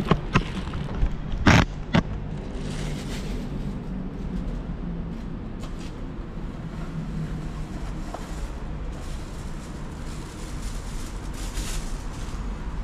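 A few sharp knocks and clacks in the first two seconds, the loudest about a second and a half in, as the camera is moved and set down. After that only a steady low rumble of background noise.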